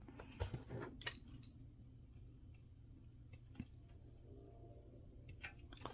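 Faint scattered clicks and light taps of small plastic model-kit parts being handled and fitted: a few in the first second, one in the middle and several near the end, over a low steady hum.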